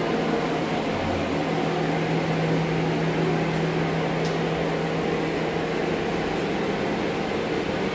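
Portable air scrubber's fan running steadily: a constant rush of air with a low hum.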